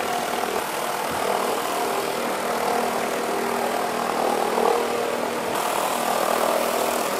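Stainless-steel bowl cutter (bowl chopper) running with a steady, even-pitched machine hum while it works minced chicken together with spices and water into sausage paste.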